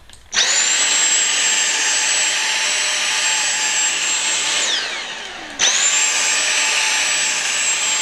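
Dyson V7 Motorhead cordless stick vacuum motor starting up with a high whine and running on carpet. About four and a half seconds in it winds down with a falling whine, then starts up again a second later and runs on.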